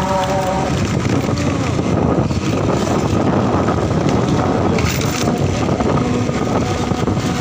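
Steady rush of wind on the microphone over a riding motorcycle's engine and tyre noise.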